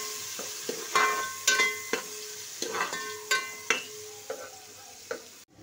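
Sliced onions sizzling as they brown in hot oil in a steel pot, stirred with a metal spoon that knocks against the pot about eight times, each knock ringing briefly. The sizzle grows fainter near the end.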